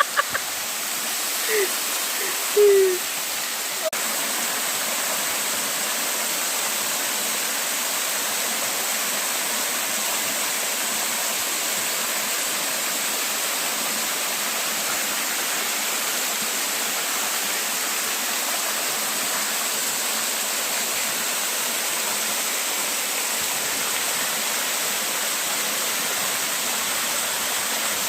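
Steady rush of a waterfall, an even, unbroken noise of falling water. About two to three seconds in there are two short pitched sounds, the second one briefly louder.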